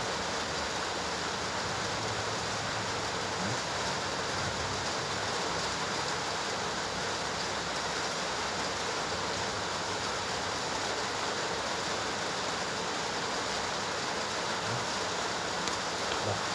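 Steady rushing background noise at an even level throughout, with a few faint low knocks.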